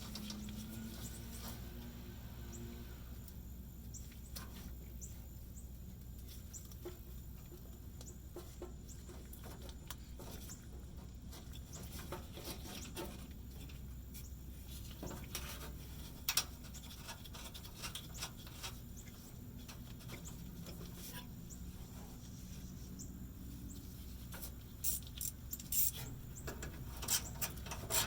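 Hand tools and parts being handled during fuel pump installation: scattered light clicks and taps over a faint low hum, then near the end a quick run of evenly spaced clicks.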